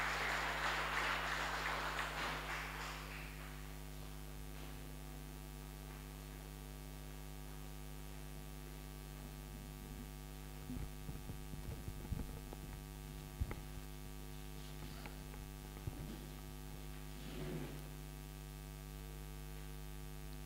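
Steady electrical mains hum, after the tail of the choir's singing fades out over the first few seconds. There are a few faint knocks near the middle.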